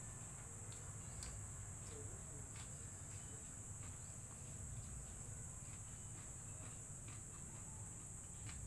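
Steady high-pitched insect chorus over a low background rumble, with a few faint clicks.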